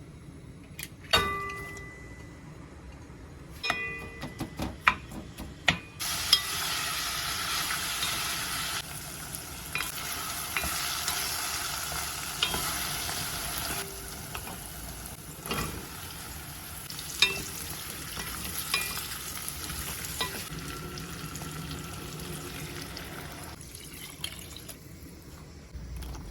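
Several sharp clinks of utensils on cookware, then food sizzling in a hot frying pan, starting suddenly about six seconds in, with occasional clicks as it is stirred or turned. The sizzle fades out near the end.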